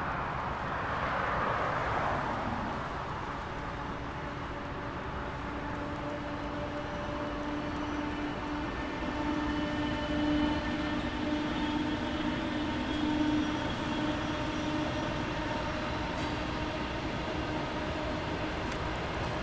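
A steady mechanical drone with a pitched hum, after a brief rush of noise in the first few seconds.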